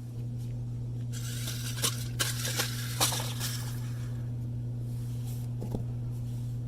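New Bright toy RC rock crawler being driven: a burst of rattling gear and tyre noise with a few sharp knocks from about one to three and a half seconds in, over a steady low hum.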